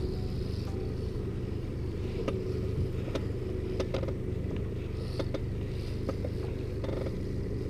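Boat motor running steadily at slow trolling speed, a low even drone, with a few sharp clicks over it.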